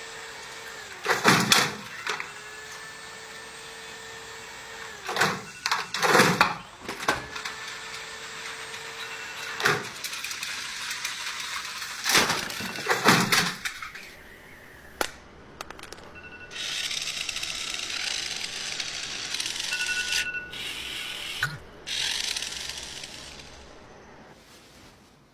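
A machine's motor hums steadily and drops in pitch each time a cluster of loud impacts comes, four times. After that comes a steady hiss lasting several seconds.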